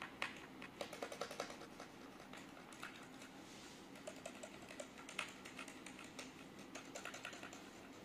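Typing on a SkyLoong SK96 mechanical keyboard with Gateron switches: faint, quick runs of key clacks coming in several short bursts.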